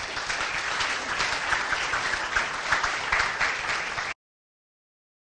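Audience applauding, a dense patter of many hands clapping that cuts off suddenly about four seconds in.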